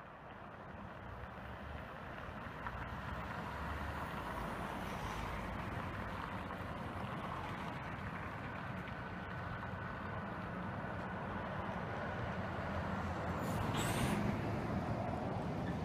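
Motor vehicle passing: its steady engine and road noise slowly grows louder, peaks about two seconds before the end, then starts to fade.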